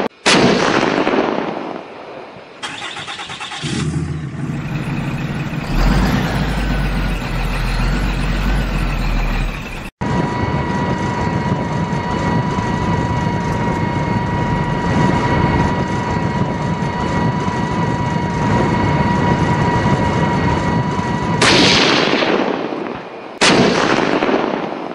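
Added vehicle sound effects: a sudden blast at the start, then an engine starting and running, then a steady whine held for about eleven seconds, ending in two explosion blasts near the end.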